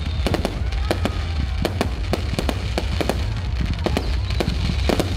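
Fireworks display: a rapid, irregular string of sharp bangs, several a second, over a steady low rumble.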